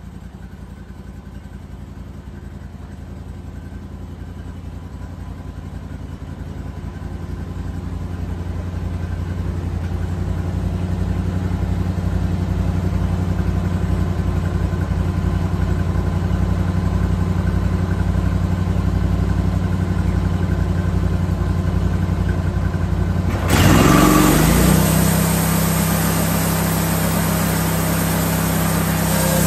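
Log Father LF 2236 band sawmill's engine running steadily, slowly growing louder. About 24 seconds in it revs up with a rising pitch and a loud rushing noise of the running band blade sets in and holds.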